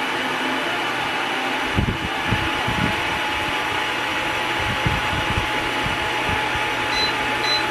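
Bladeless fan running: a steady rush of air with a faint steady motor hum. A few low thuds come through in the middle, and three short high beeps sound near the end.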